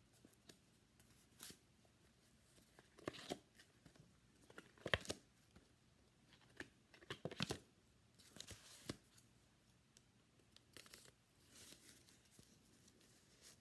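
Cardboard notebook covers and pages being turned on a plastic spiral binding: faint, scattered scraping and rustling strokes every second or two, the loudest about five seconds in.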